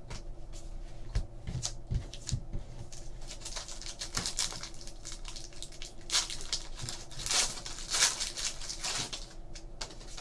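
Trading cards being handled and shuffled by hand, a string of soft rustles, slides and light clicks.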